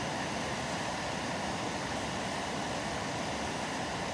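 Portable gas camping stove burner running on high flame, a steady hiss, heating a pot of water toward the boil.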